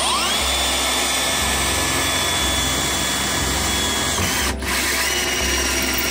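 Cordless drill driving a 32 mm hole saw into the top of a metal consumer unit casing, cutting a cable-entry hole. The motor whine spins up at the start, drops off briefly a little past four seconds, then picks up again and runs steadily.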